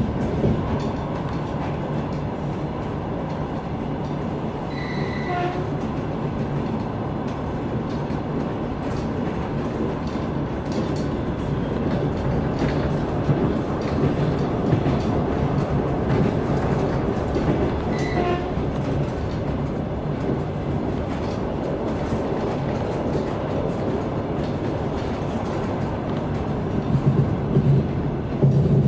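Electric airport express train under way, heard inside a passenger car: a steady rumble of wheels on the track with a low hum. Two short high-pitched tones sound about 13 seconds apart, and a few louder knocks come near the end.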